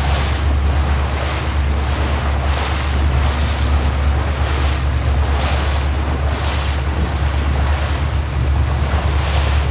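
Small motorboat moving slowly on calm sea water. Water washes against the hull in regular pulses, over a steady low rumble of wind on the microphone and the boat's running.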